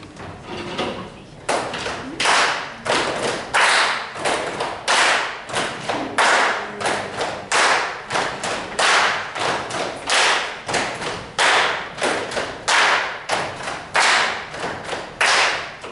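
A group clapping in unison in a steady rhythm, about two sharp beats a second with some beats doubled, each echoing briefly in a large hall.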